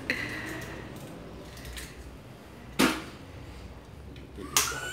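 Eggs being broken by hand over a blender jar: a sharp knock of shell or egg about three seconds in, and another near the end.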